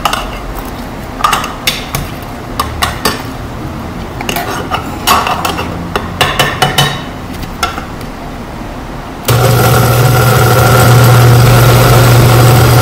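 A spoon knocking and clinking against a blender jar as chopped vegetables are pushed down. About nine seconds in, the old countertop blender's motor switches on at the chop setting and runs loud and steady, chopping peppers, onions and garlic.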